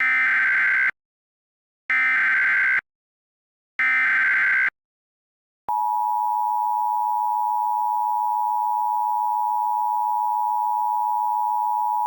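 Emergency Alert System SAME header: three short bursts of warbling data tones, each about a second long with a second's gap. Then, about halfway through, the steady EAS attention tone begins and holds.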